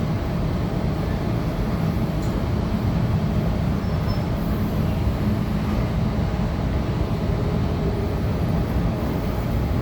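Steady running noise inside a Tangara electric multiple unit travelling at speed on an express run: a continuous low rumble of wheels on rail and the train's running gear.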